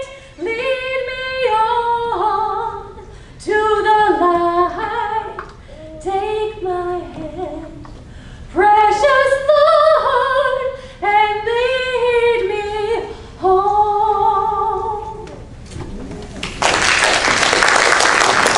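A woman's voice leads a small group of singers through the closing phrases of a song, with no instruments showing underneath. The singing ends about 15 seconds in, and about a second later applause starts and runs on.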